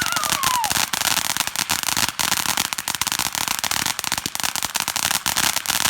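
Consumer firework crackling: a dense, continuous stream of rapid sharp pops and crackles, with a short falling whistle in the first second.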